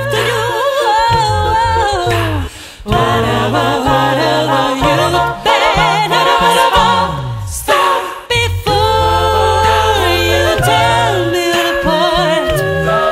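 Background music: an a cappella vocal ensemble singing in several-part harmony over a low sung bass line, with short breaks between phrases.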